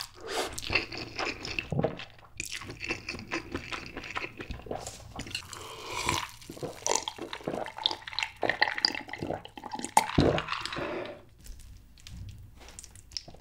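Close-miked eating sounds: slurping and chewing spicy stir-fried noodles, then several seconds of repeated gulping as a drink is swallowed from a bottle. It goes quieter near the end.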